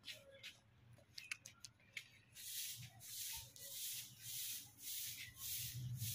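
A few light clicks, then from about two seconds in a steady run of rhythmic rubbing strokes, about two a second.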